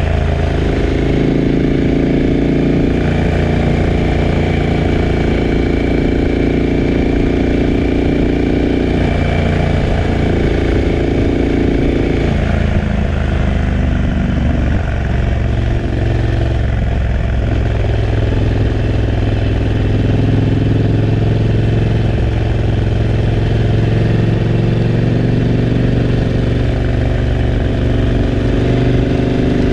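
KTM 1290 Super Adventure S's V-twin running through a Remus 8 exhaust while riding, the engine note shifting in pitch a few times as the throttle changes.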